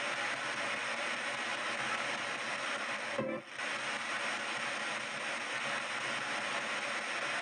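PSB7 spirit box scanning radio stations in reverse sweep, a steady rush of static played through stereo speakers, broken once briefly about three seconds in.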